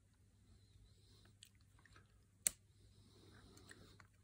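Quiet handling noise: a few faint clicks of steel pliers on a small circlip and the plastic model joint, with one sharper click about halfway through.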